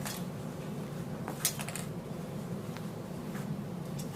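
Light clicks and soft rustling from pins being pulled out of fabric and handled, with one sharper click about a second and a half in, over a steady low hum.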